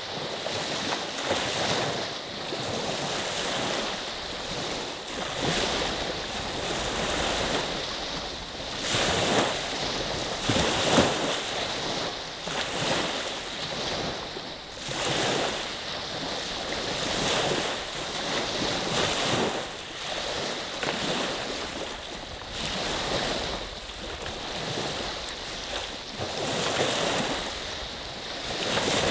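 Small waves on Saginaw Bay, Lake Huron, breaking and washing up the beach one after another, swelling and fading every second or two. One louder splash comes about eleven seconds in.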